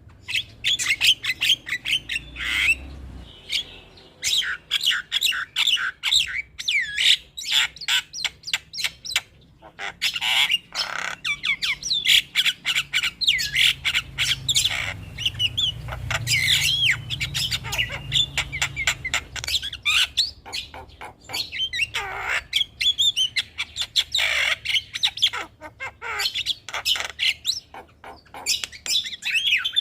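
Javan mynas calling without a break: a rapid chatter of short clicking notes mixed with harsh squawks and whistled notes that slide up and down in pitch.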